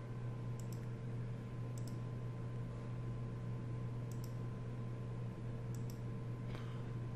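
Computer mouse clicking a few times, light paired clicks spread a second or more apart, over a steady low electrical hum.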